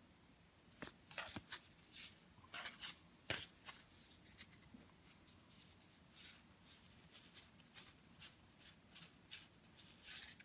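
Baseball trading cards being flipped through by hand, one sliding off the stack after another. The card stock makes faint, irregular flicks and scrapes, about one or two a second.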